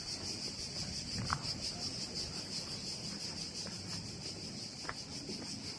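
Insects chirping, a steady high-pitched pulsing buzz, with two brief faint high notes.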